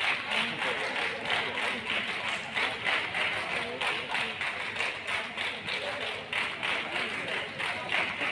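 Spectators clapping in a quick, steady rhythm during a traditional martial arts bout, with voices calling out under the claps.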